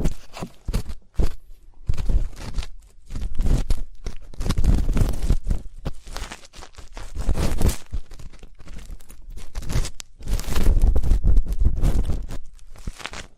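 Ear-cleaning ASMR: an ear pick scraping and rubbing right against the microphone, giving waves of dense scratchy crackling with low rumbling thumps under them, pausing briefly between strokes.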